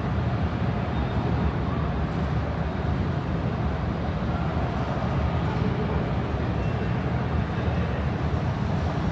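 Steady low rumble of aircraft and ground vehicles around an airport apron, with no separate events standing out.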